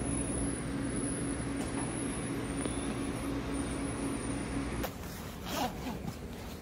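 Steady low room hum with a faint constant tone at a café counter. About five seconds in it changes abruptly to quieter room noise with a few light rustles and taps.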